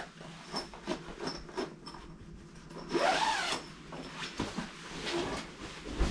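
Sleeping bag zipper being pulled open, with the bag's fabric rubbing and rustling as it is unfolded; a louder, longer zip-and-rustle comes about three seconds in.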